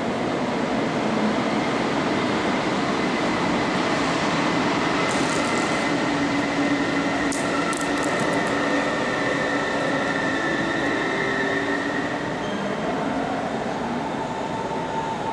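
Deutsche Bahn Intercity passenger coaches rolling past on the platform track, a steady rumble with a faint high wheel squeal held through most of it. It eases off a little near the end as the tail of the train moves away.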